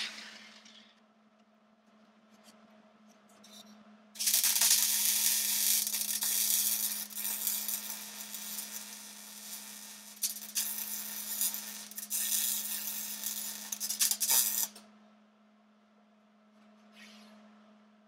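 Electric arc welding on the steel-tube go-kart frame: a loud crackling hiss that starts about four seconds in, runs for about ten seconds, and cuts off sharply.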